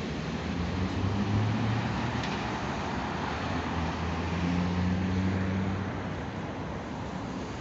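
Road traffic passing on a busy city street: a steady roar of tyres and engines, with a low engine hum that swells about a second in and again around five seconds in as vehicles go by.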